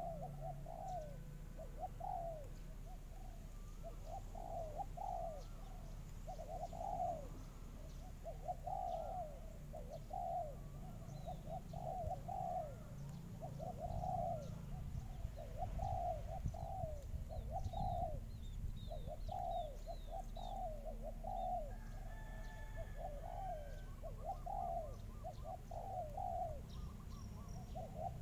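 A dove cooing over and over in a long run of short coos, roughly one a second, with faint chirps from small birds in the middle.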